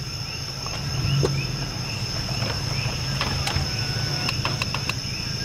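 Night insects calling: a steady high-pitched trill with short rising chirps repeating about twice a second, over a steady low hum and a few faint clicks.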